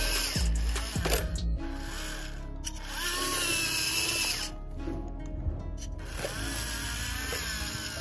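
Music playing over the whine of a small electric gear motor driving a homemade remote-control model tractor through mud.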